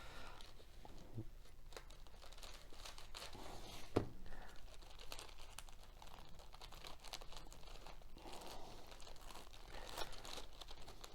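Grease-proof paper crinkling and tearing as a glued model glider wing is worked loose from it, with small scattered crackles and one sharper knock about four seconds in.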